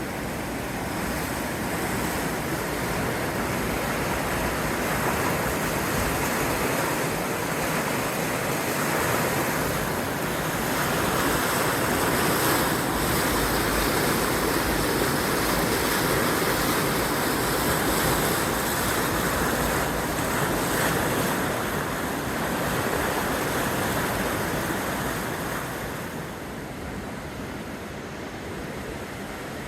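Swollen river in spate, high and fast with snowmelt from a thaw, its water rushing steadily; a little quieter near the end.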